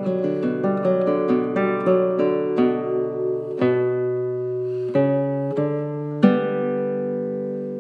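Intro music on acoustic guitar: a quick run of picked notes, then a few chords left to ring out.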